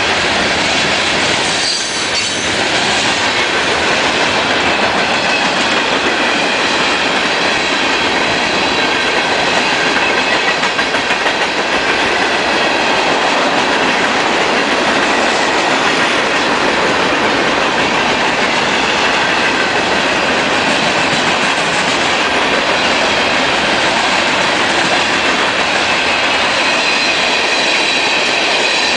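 Union Pacific freight train of covered hoppers and tank cars passing close by: steady, loud noise of steel wheels on rail, with a faint high wheel squeal running through it.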